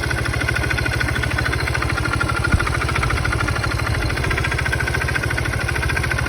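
Scooter engine idling with a fast, steady knock that is still there after a new oil pump, new pump bolts and a new sprocket were fitted; the owner does not know what causes it. A single sharp click about two and a half seconds in.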